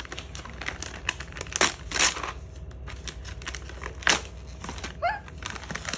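Gift wrapping crumpled and pulled open by hand: scattered loud crinkles and crackles as a birthday present is unwrapped.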